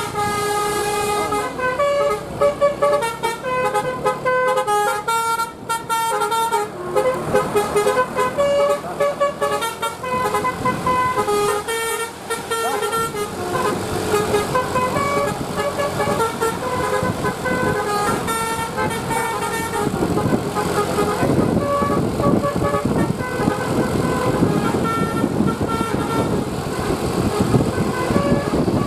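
Bus 'basuri' telolet horn, a multi-trumpet musical air horn, playing a tune of short stepped notes one after another. A rougher noise from the vehicle and surroundings grows under the notes about halfway through.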